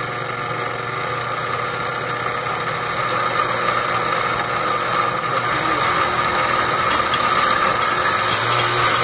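Countertop blender motor running steadily, churning a thick load of beans and chopped vegetables and working through it slowly; the noise grows a little louder a few seconds in.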